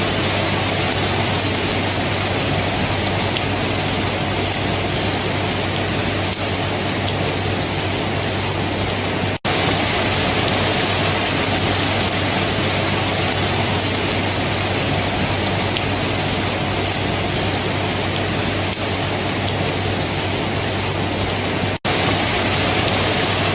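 Steady heavy rain, an even dense hiss with a steady low hum underneath. The sound cuts out for an instant twice, about nine and twenty-two seconds in.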